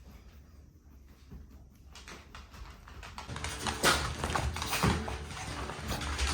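Shiba Inu puppies scrambling and playing, a busy patter of small clicks and scratches that starts faint and grows busier and louder from about two seconds in.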